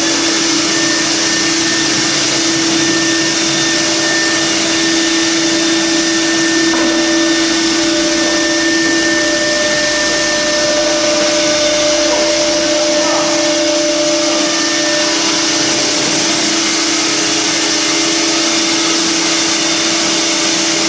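A CNC router's spindle spinning a circular saw blade, giving a steady high whine over a loud, even machine hiss.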